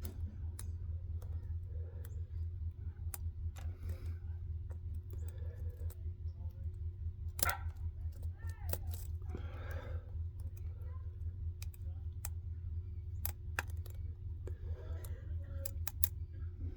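Small metal clicks and ticks from a lock pick and tension wrench working the pin stack of a Ruko 600 lock cylinder, scattered irregularly with one louder click about halfway through, over a steady low hum. Soft breaths or mutters come between the clicks.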